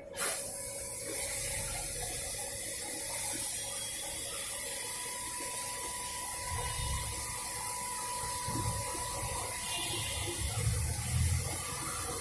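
CNC machine running a drilling cycle with coolant flowing: a steady watery hiss of coolant starts suddenly at the outset, over a faint steady whine from the machine, with a few low knocks near the end.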